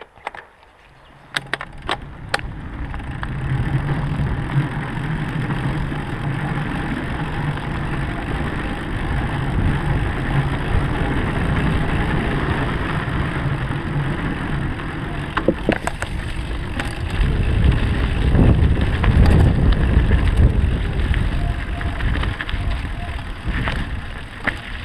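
Mountain bike rolling along a wooden plank boardwalk, the tyres rumbling and the bike rattling over the boards, with a few sharp clicks near the start. The rumble grows louder for a few seconds past the middle.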